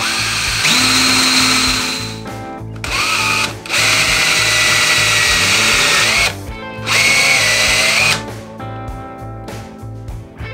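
Cordless DeWalt drill running in about four bursts of one to two and a half seconds, spinning a small wooden hinge piece held in its chuck against the fingers, a steady motor whine in each burst. Guitar music plays underneath.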